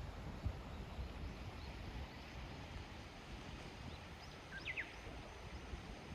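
Wind buffeting the microphone in an unsteady low rumble, with a bird giving a few short, quick chirps about four to five seconds in.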